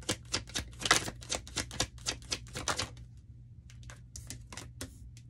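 A tarot deck being shuffled by hand: a quick run of card slaps and clicks that thins out after about three seconds.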